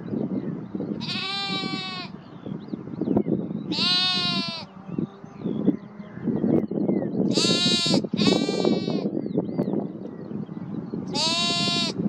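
Lambs bleating: five high-pitched baas of about a second each, two of them back to back about two-thirds of the way through.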